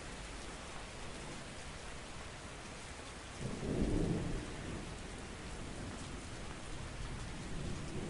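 Steady rain in a city, an even hiss of falling rain. About three and a half seconds in, a short low rumble swells up over the rain and fades within about a second.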